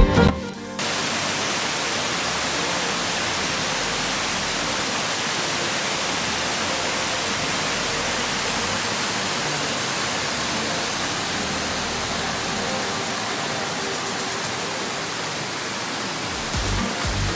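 Waterfall's steady rush of falling water, an even unbroken hiss with no change in level. Background music ends just under a second in and starts again near the end.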